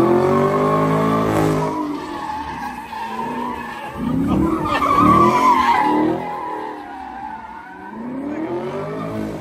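Car engine revving up and down repeatedly while its rear tyres squeal on asphalt as the car spins donuts. The squeal and revs are loudest about four to six seconds in.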